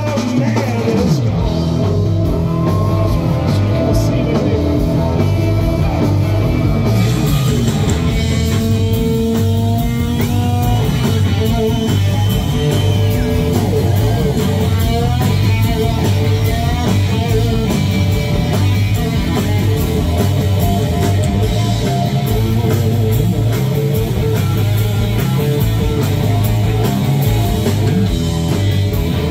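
Live blues-rock band with an electric guitar solo, the lead full of bent notes, over bass and drums.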